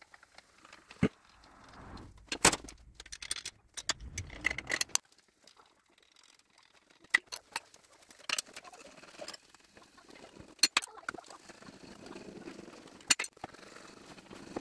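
Irregular sharp metal clinks and knocks, with quieter scraping between them, as a cap puller is fitted to the cast main bearing caps of a Gardner 6LXB diesel engine and the caps are worked loose and lifted out of the crankcase.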